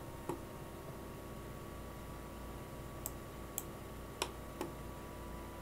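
Computer mouse clicking: about five short, separate clicks, one near the start and four close together in the second half, over a faint steady electrical hum.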